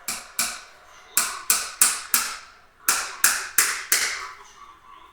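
A rapid, irregular series of about ten sharp, loud knocks, each ringing briefly before the next.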